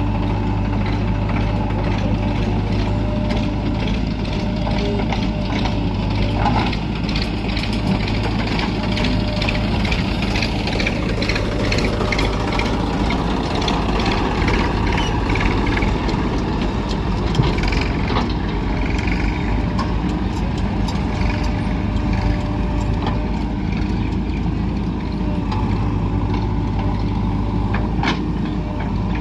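Diesel engine of a JCB 3DX backhoe loader running under load as it digs and loads mud; its note shifts a few seconds in and again about ten seconds in, with scattered knocks and clatter from the working machine.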